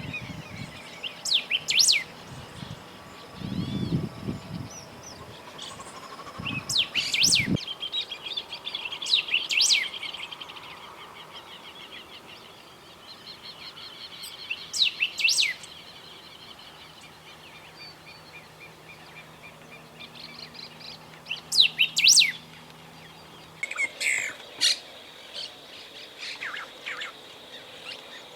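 Golden-billed saltator singing: short, loud phrases of quick sweeping whistled notes, repeated every few seconds. A fainter continuous trill runs behind, and a low rumble fills the first seven seconds or so.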